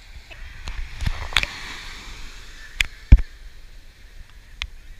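Small surf waves breaking and washing up a sandy beach, swelling about a second in, with several sharp knocks scattered through, the loudest about three seconds in.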